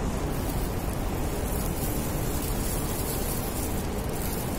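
Steady background noise, heaviest in the low end, with no distinct events standing out.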